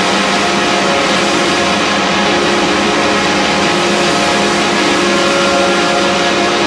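A steady, dense electronic drone: a wall of noise with many held tones at different pitches, unchanging in loudness.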